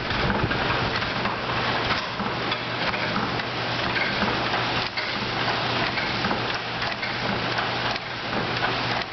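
Coal fire in a blacksmith's forge crackling and rushing under the air blast from a two-stage Alldays & Onions forge bellows being pumped by its lever handle, with a steady low hum underneath.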